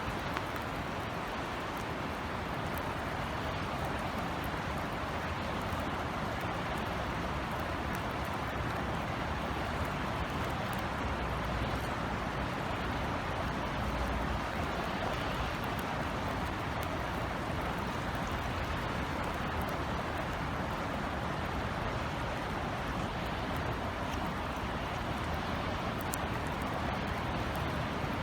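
Steady rain falling, an even hiss with scattered faint drop ticks, over a low rumble.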